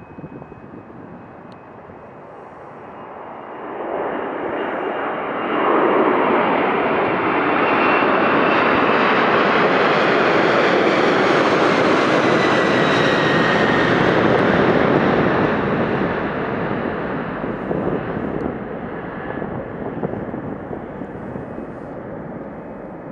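Boeing 747-400ER freighter's four jet engines at takeoff power as the plane climbs out overhead. The noise builds over the first several seconds and is loudest as the plane passes, with a whining tone that falls in pitch. It then fades as the plane climbs away.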